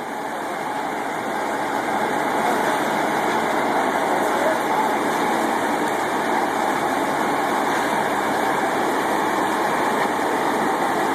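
Steady machine noise from the concrete pump truck running during the slab pour, building a little over the first couple of seconds and then holding.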